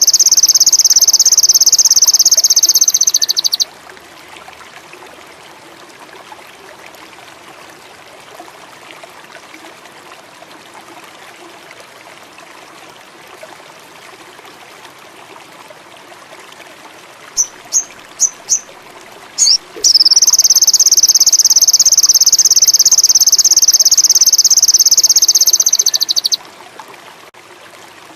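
Recorded sogon song: a loud, rapid, high trill that stops about three and a half seconds in. After a long stretch of faint background hiss, a few short sharp notes lead into a second trill of about six seconds.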